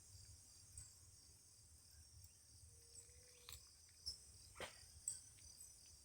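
Faint, steady high-pitched chorus of crickets, with a few brief short chirps or clicks in the second half.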